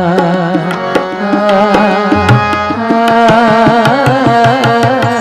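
Tabla drumming a steady rhythm under a wordless instrumental passage of a Hindu devotional bhajan, with the melody wavering in vibrato from about a second in.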